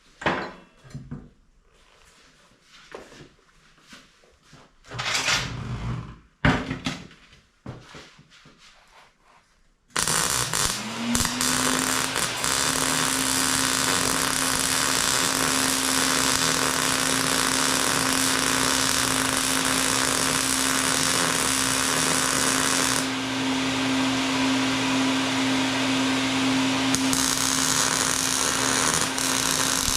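Scattered knocks and clatter of handling, then about ten seconds in an electric angle grinder spins up and runs steadily with a loud hiss of metal grinding. The high hiss drops back a little about two thirds of the way through and swells again briefly near the end.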